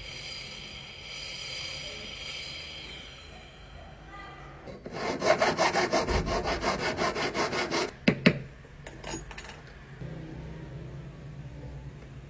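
Hand file rasping back and forth on a metal ring band braced against a wooden bench pin: a run of quick, even strokes, about six or seven a second for some three seconds, ending in two sharp clicks.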